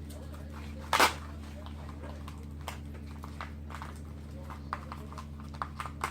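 Wiring harness being handled by hand: one short, sharp crackle about a second in, then scattered small clicks and rustles of wires being moved, over a steady low hum.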